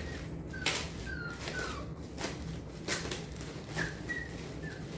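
A pet animal making about six short, high squeaky calls, each sliding slightly down in pitch, with brief rustles in between.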